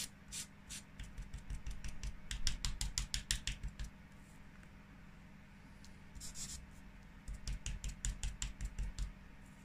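A small foam sponge dabbed quickly onto tiny model signs: two runs of rapid light taps and scratchy dabs with soft knocks, the first about a second in and the second from about six seconds, with a short pause between. A faint steady hum lies underneath.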